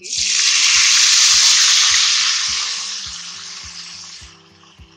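Soaked basmati rice poured into hot ghee with cumin seeds in a kadai: a loud sizzle that starts suddenly and dies away over about four seconds as the wet rice settles in the fat.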